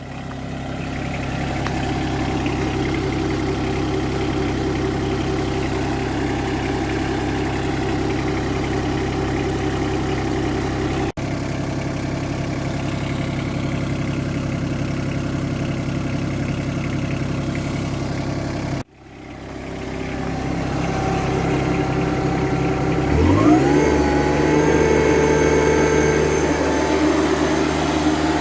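Yanmar 424 tractor's diesel engine idling steadily, broken by two sudden cuts. About 23 s in it revs up quickly and holds at a higher, steady speed.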